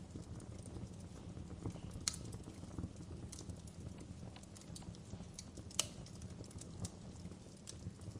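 Fire crackling: a steady low rumble of flames with scattered sharp pops and snaps of burning wood, two louder cracks about two and six seconds in.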